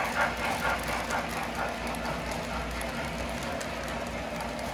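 O gauge model freight train running along the layout's track: a steady rolling rumble of the wheels with light clicking, more of it in the first couple of seconds.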